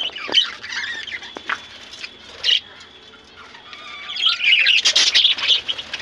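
A small flock of budgerigars chattering and squawking, with a few short calls early on and a denser, louder burst of chatter in the second half. A flutter of wings comes near the end.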